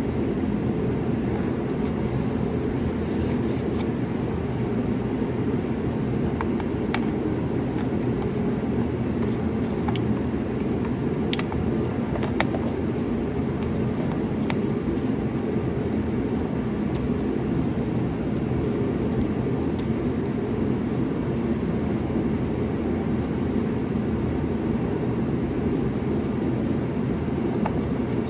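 Yamaha RX1's 1000cc four-stroke, four-cylinder carbureted engine idling steadily, warming up on fresh oil so the oil level can be checked. A few faint clicks are heard near the middle.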